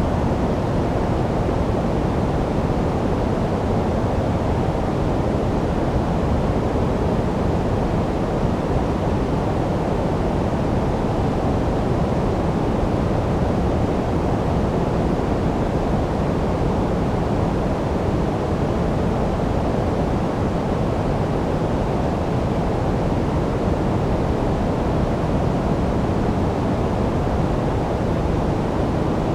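Steady generated sleep noise: an even, unchanging rushing hiss that is deep and muffled rather than bright, with no pulses or changes.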